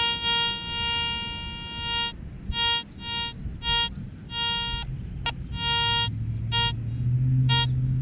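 Garrett ACE 400 metal detector sounding its target tone over a buried target: one long steady beep of about two seconds, then a string of shorter beeps of the same pitch as the coil sweeps back and forth across the spot. A low hum rises in the background near the end.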